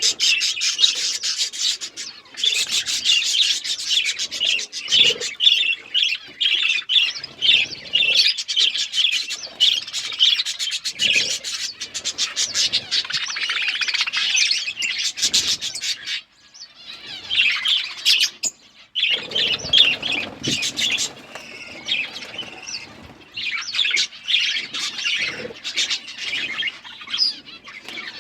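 Several budgerigars chattering and chirping in a dense, rapid run of high chirps, with a couple of short breaks.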